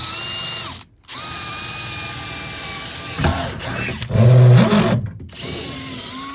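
Power drill running, drilling out steel body rivets, with a steady whine that stops briefly about a second in and again near the end. A louder, rougher stretch comes around four seconds in.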